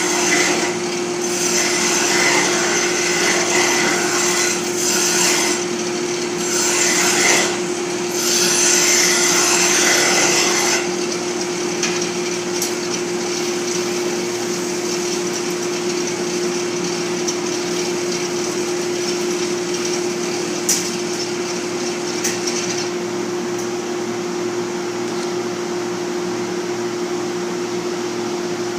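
Lathe motor running with a steady hum while a turning tool cuts into spinning wood, scraping in several bursts for about the first ten seconds. After that the tool comes off and the lathe keeps running with lighter rubbing and a few small clicks.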